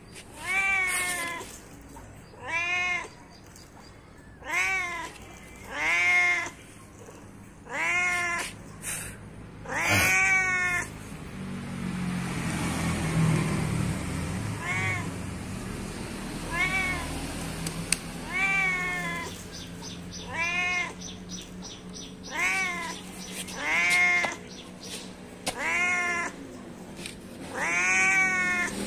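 Domestic cat meowing over and over, about fifteen separate meows, each rising then falling in pitch. A few seconds after the middle the meows pause while a low rumble swells and fades.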